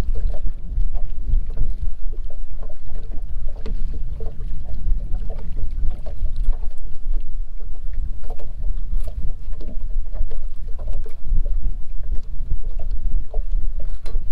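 Wind noise on the microphone of a small fishing boat, steady and gusty, with scattered light knocks and slaps of water against the hull.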